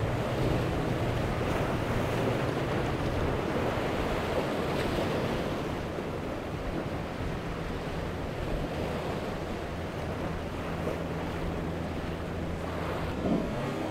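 Rough inlet water and surf rushing and splashing around a powerboat's hull as it runs through breaking waves, with the low steady drone of its engines underneath and wind on the microphone.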